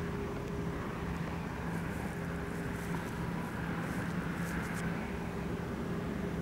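Wind blowing across the camcorder microphone: a steady rumble with a faint low hum running under it.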